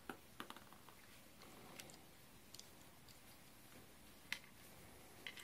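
Near silence with a few faint, scattered clicks and taps of small plastic toy parts being handled; the sharpest click comes about four seconds in.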